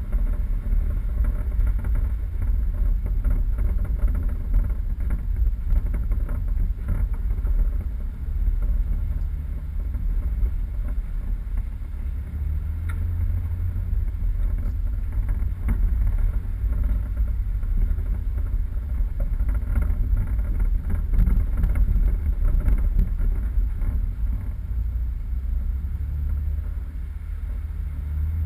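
Four-wheel-drive vehicle driving off-road: a steady low engine and drivetrain rumble with scattered small knocks and rattles.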